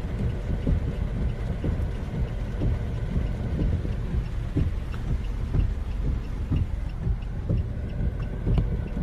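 Inside a stationary car in heavy typhoon rain: a low, steady rumble of the idling engine and rain drumming on the body, with irregular knocks and a faint regular ticking about twice a second.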